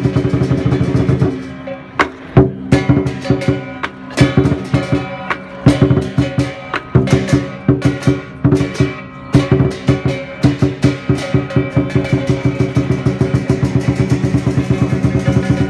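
Lion dance percussion: a drum beaten with clashing cymbals, in rapid strikes broken by a couple of short pauses, then a fast, steady beat near the end.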